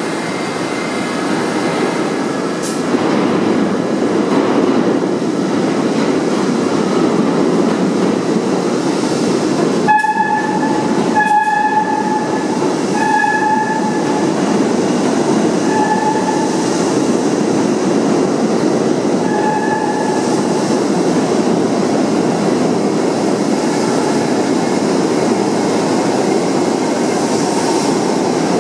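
R68 subway train running through the station: a steady, loud rumble of wheels and running gear on the rails. About ten seconds in there is a sharp knock, followed by five short, steady high tones spread over the next ten seconds.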